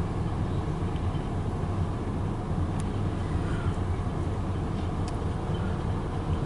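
Long freight train rolling past as a steady low rumble, with a couple of faint ticks.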